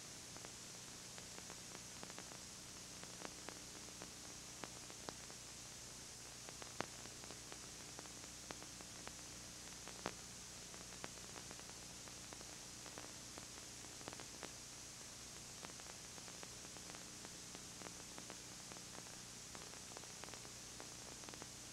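Steady hiss of videotape recording noise with a faint low hum and scattered small clicks; no sound from the scene itself.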